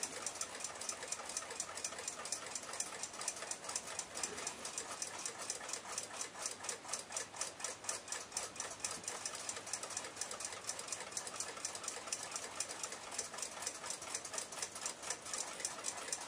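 A 1906 Western Clock Company pin-lever alarm clock movement running out of its case, its escapement ticking rapidly and evenly. It runs well, with its pivots freshly oiled.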